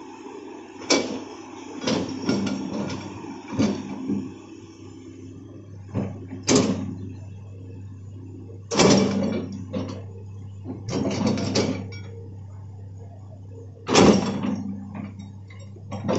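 Hitachi hydraulic excavator's engine running steadily, with irregular bursts of scraping and clanking as the bucket and boom work the soil, loudest about nine and fourteen seconds in.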